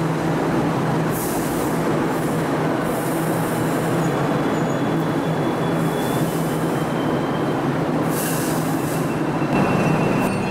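Hong Kong Light Rail Phase I light rail vehicle running slowly into the platform and stopping, with a steady low hum, several short bursts of high hiss and a faint thin wheel squeal. About nine and a half seconds in, the sound changes to the train as heard from inside the car.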